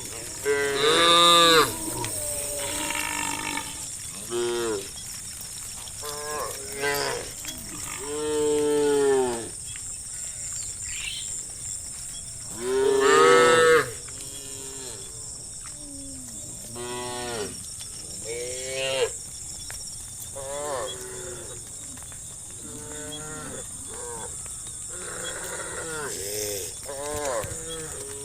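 A herd of cows mooing, one call after another and sometimes overlapping, each call rising and then falling in pitch, with a few long, loud moos standing out. A steady high hiss runs underneath.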